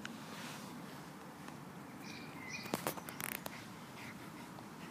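Quiet garden ambience with a few faint bird chirps about two seconds in, then a short cluster of soft clicks and rustles about three seconds in.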